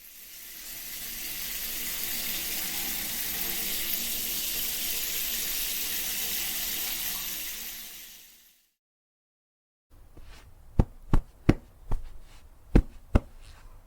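Water running steadily, fading in over about two seconds and out again about eight seconds in. After a short silence come about seven sharp knocks or clicks at irregular spacing.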